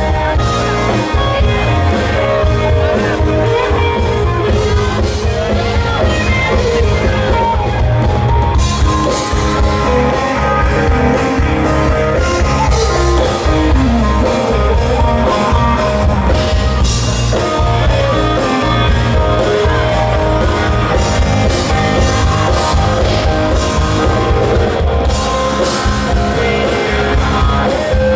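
Live rock band playing a song at full volume: electric guitar over a steady drum kit and bass.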